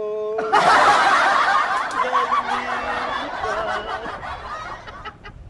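A man's held sung note breaks off about half a second in. A burst of laughter from several people takes over and slowly fades away over about four seconds.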